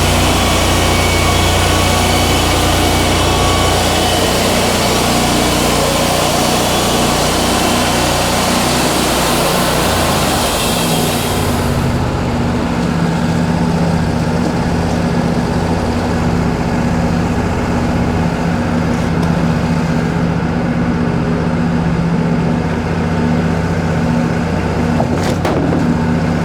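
Wood-Mizer LT40 band sawmill sawing through a yellow pine log, a high rushing blade noise over the steady engine. About halfway through, the cut ends and the high noise drops away abruptly, leaving the sawmill's engine running steadily.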